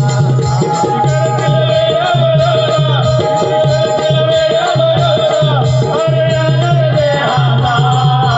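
Live folk-theatre music: a drum keeps a steady repeating rhythm under a held, wavering melody line, with light percussion strokes throughout.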